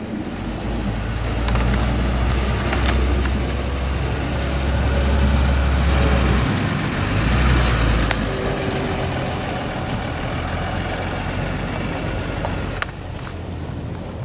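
Dodge Ram 2500 pickup truck's engine running as it pulls away and drives past towing a travel trailer. The rumble is strongest in the first half and eases off after about eight seconds, with a few faint sharp clicks.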